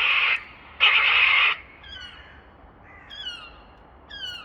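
Crows giving alarm calls at a Harris hawk: two loud, harsh caws in the first second and a half. Then come a few quieter gull calls, each a quick run of high, falling notes.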